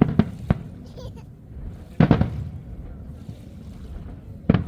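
Fireworks bursting: a couple of sharp bangs near the start, a loud cluster of booms with a rumbling tail about two seconds in, and more bangs starting near the end.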